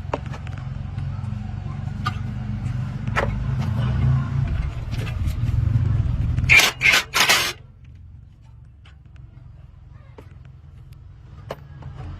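An engine running with a steady low rumble and scattered clicks and knocks. About two-thirds in come three short, very loud bursts of noise, after which the rumble drops away to a much quieter background before it picks up again near the end.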